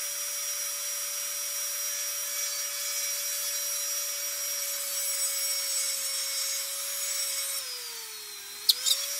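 Micromotor rotary carving tool running at a steady high pitch, a burr drilling through a vine with a light grinding hiss. Near the end the pitch sags as the burr bites, then comes back up as it goes right through, with a couple of sharp clicks.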